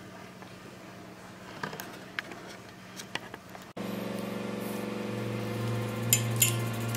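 A few faint taps over quiet room tone. About four seconds in, steady background music starts abruptly. Near the end come two sharp metal clinks as the wrought-iron coffee table frame is handled.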